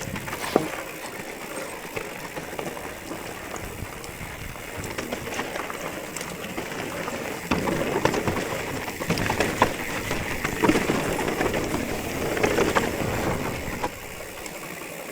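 Specialized Stumpjumper mountain bike riding down a dirt trail: tyres rumbling over the ground, with the chain and frame rattling and clicking over bumps. It gets rougher and louder from about halfway through and eases shortly before the end.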